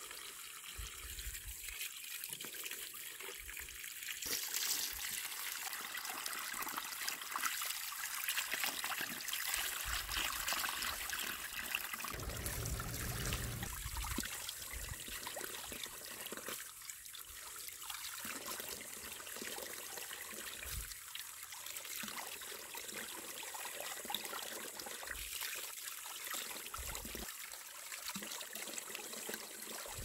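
Spring water pouring from a pipe into a plastic basin of apricots in a steady splashing trickle, with hands washing the fruit in the water.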